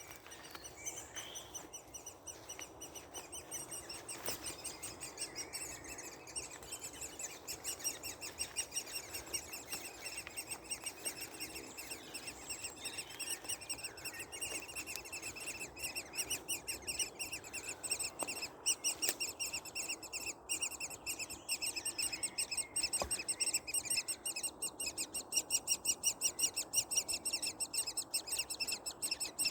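Woodpecker nestlings calling from inside the nest, a continuous, rapid, high-pitched chatter that grows louder over the second half.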